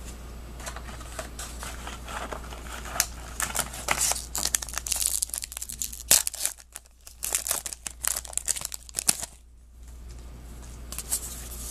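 Plastic wrapper of a Topps Archives baseball card pack crinkling and tearing as the pack is torn open and handled, with the cards rustling. The crackling comes in dense spurts, with two short lulls in the second half.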